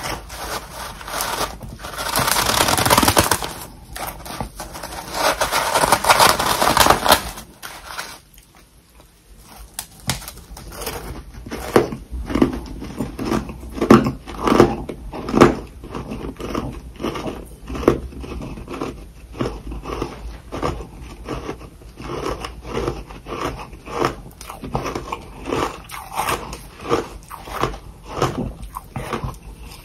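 Hard freezer frost bitten and chewed close to the microphone. Two long loud crunching stretches come first, then after a brief pause a steady run of chewing crunches, about two or three a second.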